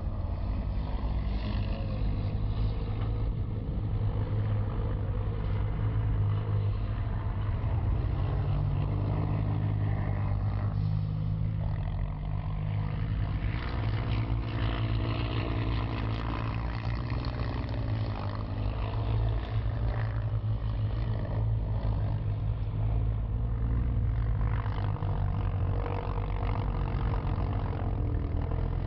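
Engines of off-road side-by-side (UTV) race cars running hard and revving on a dirt course, a continuous low engine drone with no breaks.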